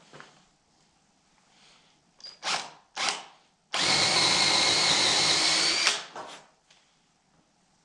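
DeWalt cordless drill boring into a wooden door frame: two short trigger pulls, then a steady run of about two seconds with a high whine that cuts off sharply.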